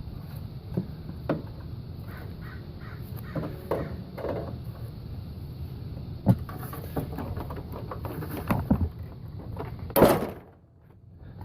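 Small metal clicks and knocks from a tensioner spring and a wire being handled, with a few cawing bird calls. One louder knock comes about ten seconds in.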